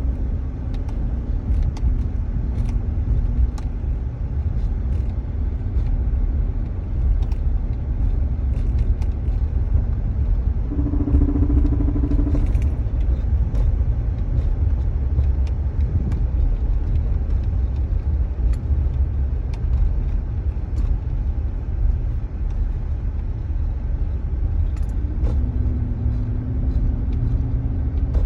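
2018 Chevrolet Silverado pickup running with a steady low rumble and scattered light ticks: the flutter/knocking noise that the owner is recording as a fault. A brief humming tone comes in about eleven seconds in.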